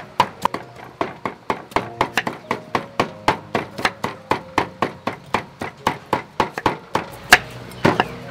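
A kitchen knife chopping fresh young bamboo shoots on a wooden cutting board, in quick, even strokes of about four a second.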